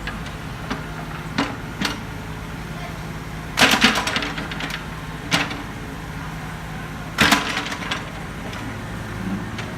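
Diesel engine of an earthmoving machine running steadily, with sharp metallic clanks and knocks from the working machine, loudest in two short rattling bursts about a third and three quarters of the way through.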